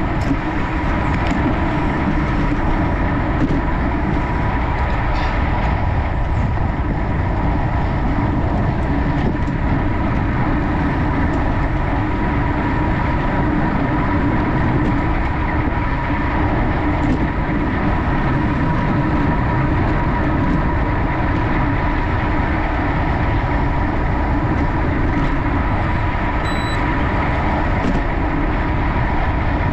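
Wind rushing over the microphone, mixed with road-bike tyre and drivetrain noise at racing speed. It is a steady, unbroken noise with a steady whine running through it.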